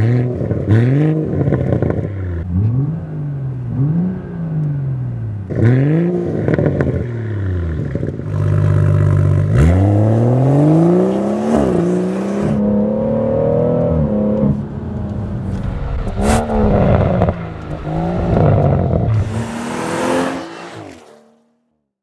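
BMW M140i's 3.0-litre B58 turbocharged straight-six through a Remus cat-back exhaust, revved in a string of short blips, then held high for a moment and dropped. It then pulls through several longer rising runs under acceleration, with one sharp crack partway through, before fading out near the end.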